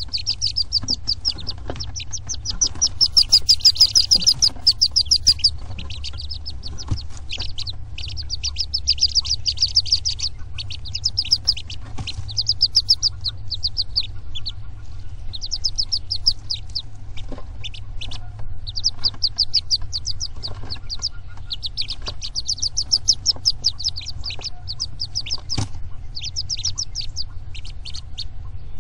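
Day-old wood duck ducklings peeping in rapid, high-pitched runs of short chirps, bursts of a second or more with short gaps between, over a steady low hum.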